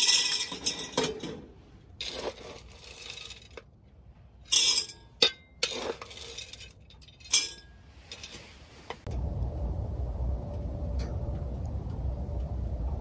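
Wood pellets poured from a metal scoop into the stainless steel funnel hopper of a pellet burner, clinking and rattling against the steel in several pours over the first seven seconds or so. From about nine seconds in, a steady low rumble.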